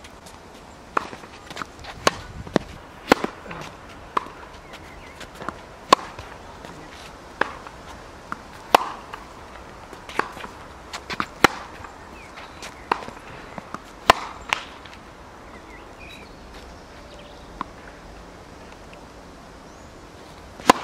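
Tennis balls struck by rackets and bouncing on an outdoor hard court during a rally: sharp pocks at irregular intervals, with a lull of several seconds near the end.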